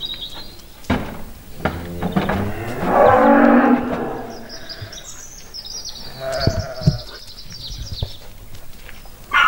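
Sheep bleating: several calls, the longest about three seconds in and another near the middle, with a few short knocks between them.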